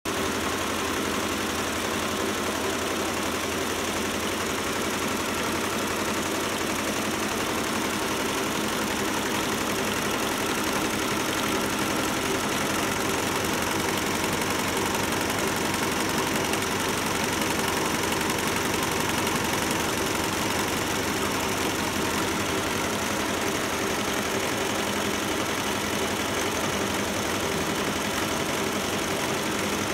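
Tajima multi-head embroidery machine stitching logos onto caps: a steady, rapid mechanical clatter of the needles.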